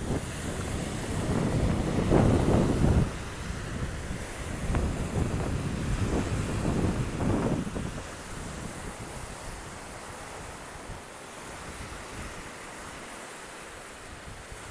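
Wind buffeting the microphone in gusts over the hiss of surf on a beach. The gusts drop away after about eight seconds, leaving the steadier wash of the waves.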